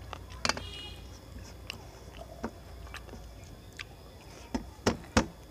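Close-up eating sounds: chewing, and fingers mixing rice on a stainless steel plate. Scattered sharp clicks, with a loud one about half a second in and two loud ones close together near the end.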